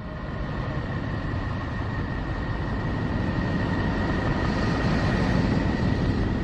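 Space-sound recording presented as the sound of the planet Neptune: a steady, deep, noisy drone with a thin high tone held through it, swelling in over the first second or so.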